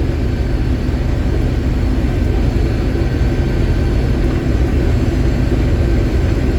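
Combine harvester running steadily while picking corn: a continuous low engine and machinery drone with no change in pace.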